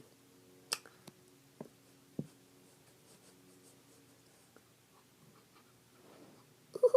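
Trading cards being handled: a few light clicks and taps as cards are flipped and slid, over a faint steady hum.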